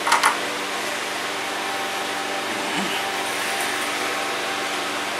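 Steady whir of a fan motor with a low hum underneath, and a short sharp noise right at the start.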